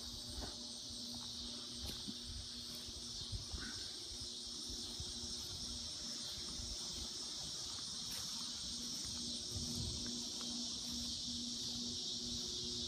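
Steady, high-pitched chorus of summer insects, with a faint low rumble beneath it.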